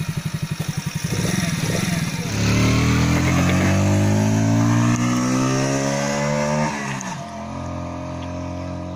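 Small single-cylinder four-stroke 139FMB moped engine chugging at low revs, then opened up about two seconds in, its pitch climbing steadily under acceleration for about four seconds. The engine note drops suddenly about seven seconds in and runs on steadier and quieter at a lower pitch.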